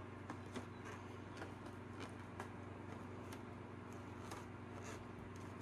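Quiet room tone with a steady low hum, and a few faint soft taps, about one a second, as a paint-dipped balloon is dabbed onto a paper plate.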